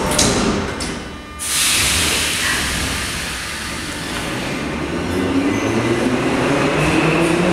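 Metro train on the adjacent track pulling out of the station. A sudden loud hiss of air comes about a second and a half in, then the traction motors' whine rises slowly in pitch as the train accelerates.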